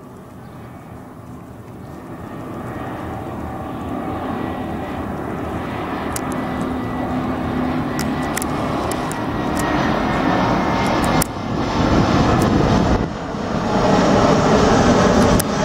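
Airliner on approach to land, its engine noise growing steadily louder as it comes nearer, with a few brief dips in level near the end.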